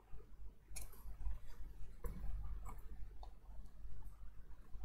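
Several faint, scattered clicks and taps of small metal reballing tools and a BGA stencil being handled, over a low steady hum.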